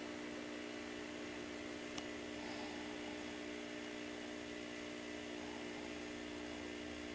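Steady electrical hum with hiss, unchanging throughout, and a single short click about two seconds in.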